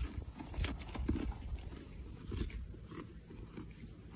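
White-tailed deer chewing a crunchy snack close up, a run of irregular crunches.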